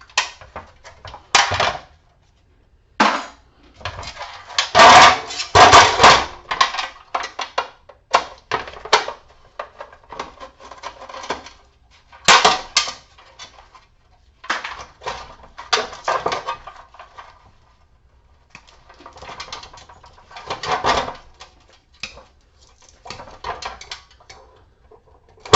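Irregular clanking and clattering of metal parts and hand tools while an appliance is taken apart for scrap, with a cluster of loud knocks about five seconds in and a sharp single strike about twelve seconds in.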